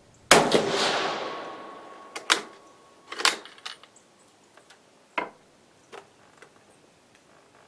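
A single rifle shot from an 8mm-converted Carcano M38 firing a light cast-bullet load, its report dying away over about a second and a half. Then a few sharp metallic clicks and clacks as the bolt is worked.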